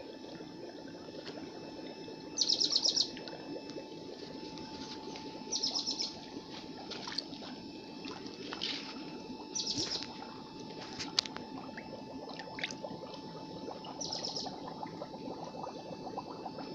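Steady running water, with a bird repeating a short, rapid chirping trill four times, every few seconds.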